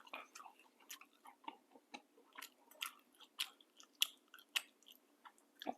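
Faint, irregular mouth clicks and smacks of a person chewing a peanut butter sandwich.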